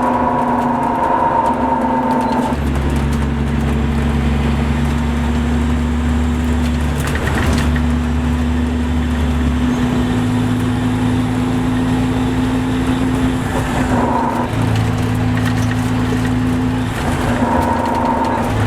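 MCI D4500CL commuter coach's Caterpillar C13 diesel engine and drivetrain running, a steady sound whose low tones shift pitch several times.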